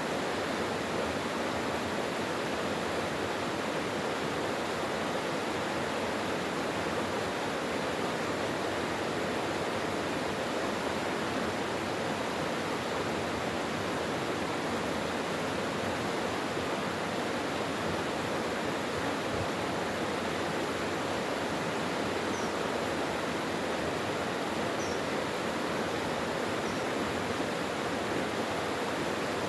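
Mountain valley stream running over rocks, a steady rushing of water. A few faint high chirps sound in the last third.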